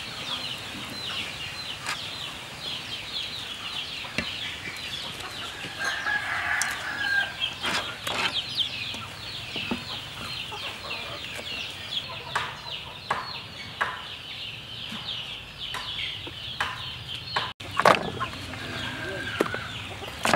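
Chickens in the background: chicks cheeping constantly in quick, high, falling peeps, with a hen's longer clucking calls now and then. Occasional sharp clicks and knocks come over the top, the loudest about eighteen seconds in.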